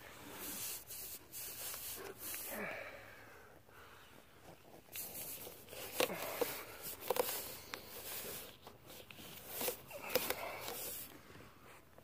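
Irregular rustling and scraping with sharp clicks and knocks, as a phone camera is handled against the inside of a dryer vent.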